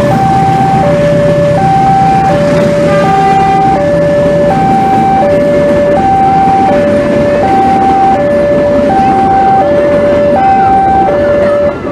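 Railway level-crossing warning alarm sounding a steady two-tone signal, alternating low and high about once every one and a half seconds, over the rumble of passenger coaches running past on the track. A low engine hum under it fades out about halfway through as the train pulls away.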